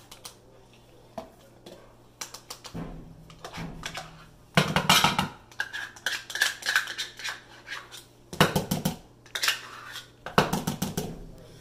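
A spoon scraping and clinking against a measuring cup and a mixing bowl while mayonnaise is scooped out and scraped off, in several bursts of scraping, the loudest about five seconds in.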